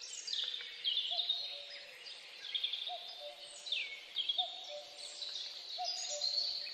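Birds chirping: quick descending calls repeating over and over, with a lower short call coming back about every second and a half.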